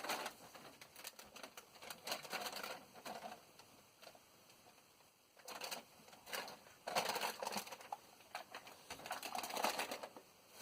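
Rummaging noises: several bursts of rapid clicking and rustling as objects are handled and moved about, with short quiet gaps between bursts.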